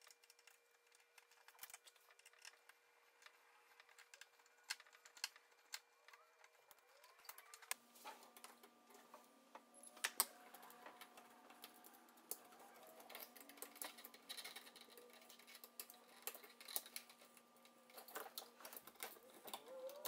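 Faint, scattered clicks and taps of a screwdriver on a GFCI outlet's plate, mounting screws and terminal screws as the outlet is taken off and pulled out of its box, against near silence.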